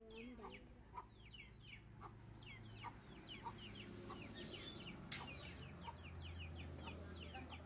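Faint bird chirping: many short falling chirps, several a second, over a low steady hum, with a sharp click about five seconds in.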